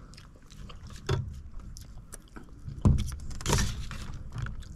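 Cutlery scraping and clicking on plastic plates and containers during a meal, with a louder thump a little under three seconds in.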